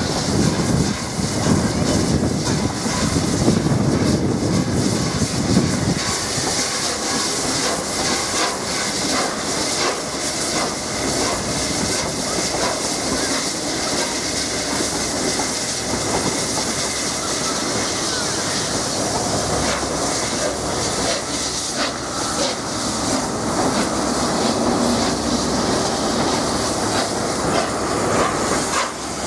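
Peppercorn A1 three-cylinder steam locomotive 60163 Tornado moving slowly past: steady hissing steam and wheels clicking over the rails, with a heavier low rumble for the first six seconds or so.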